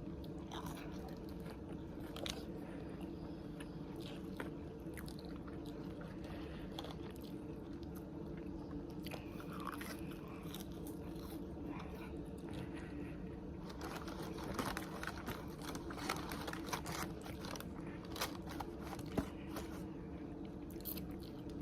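Close-up chewing and biting of crunchy fried food, boneless chicken wings and fries, with small crunches and mouth sounds scattered throughout and growing busier past the middle. A steady low hum runs underneath.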